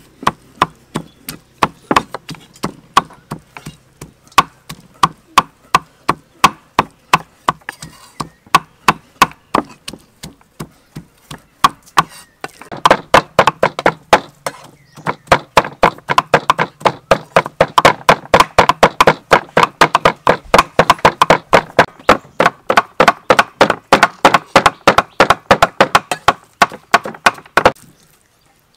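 Kitchen knife chopping tomatoes on a thick round wooden chopping block, in steady strokes about two to three a second. About halfway through the chopping turns faster and louder, about five strokes a second, and it stops just before the end.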